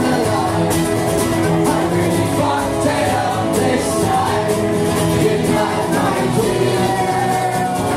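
Two acoustic guitars strummed together with a man singing.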